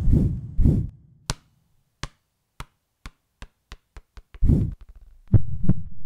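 Logo sting sound effect: a low rumble dies away, then sharp ticks come faster and faster, a deep boom lands about four and a half seconds in, and a pair of deep thuds over a low drone follow near the end.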